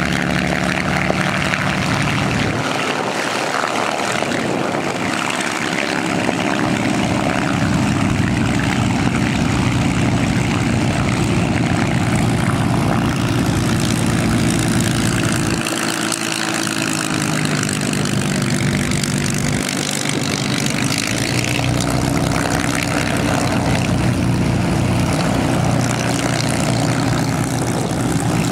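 Merlin V12 piston engines of taxiing warbirds, a P-51 Mustang and a Spitfire, running at taxi power. A steady, deep engine drone with propeller noise, with no break.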